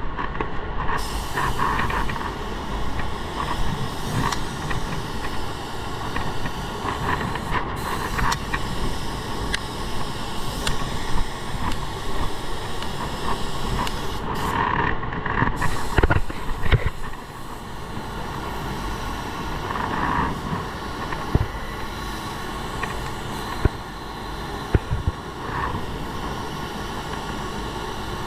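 Compressed-air paint spray gun hissing steadily as clear coat is sprayed, with the hiss briefly dropping away about halfway through.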